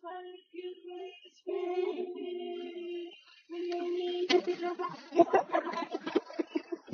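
A girl singing long held notes at a steady pitch, with short breaks between them, then laughter from about four seconds in.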